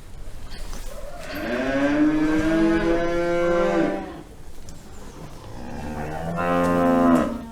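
A cow mooing twice: a long moo of about three seconds that rises in pitch and then holds, then a shorter moo near the end.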